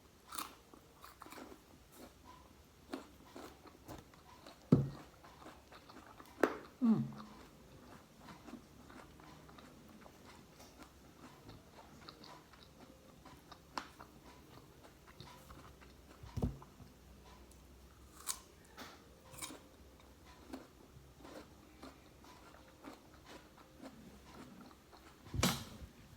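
Crunchy seedless guava being bitten and chewed close to the microphone: scattered crisp crunches and mouth clicks, with a few louder knocks in between.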